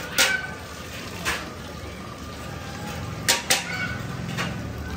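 About five sharp clinks and knocks of metal serving utensils against pots and plates, a couple of them ringing briefly, over steady background noise.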